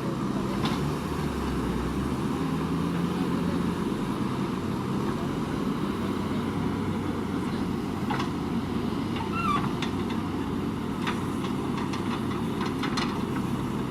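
Diesel engine of a JCB 3DX backhoe loader running steadily while digging and loading soil, with a few sharp metallic clinks and knocks in the second half.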